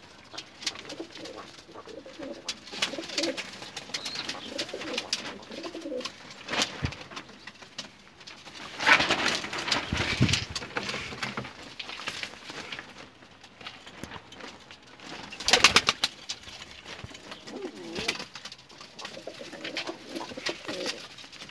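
Domestic crested pigeons cooing in a loft, low wavering calls repeating throughout. Two louder noisy bursts break in, about nine seconds in and again near sixteen seconds.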